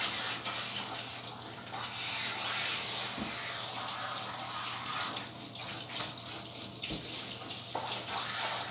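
Water running and splashing in a dog-grooming tub as a standard poodle's thick coat is rinsed.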